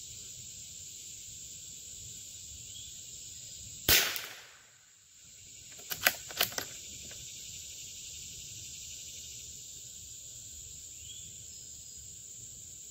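A single shot from a Howa M1100 bolt-action .22LR rifle firing subsonic SK Rifle Match ammunition, about 4 seconds in, followed about two seconds later by three quick metallic clicks of the bolt being worked. Steady insect chirring runs underneath.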